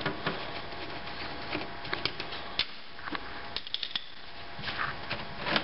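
A screwdriver turning a hose clamp on the air-conditioning plenum hose, giving scattered light metallic clicks and ticks, with a quick run of several ticks about three and a half seconds in.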